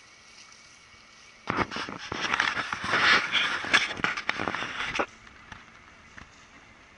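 Handling noise on the camera microphone as the camera is turned around: a dense run of crackling, rubbing and knocks starting about a second and a half in and stopping suddenly a few seconds later.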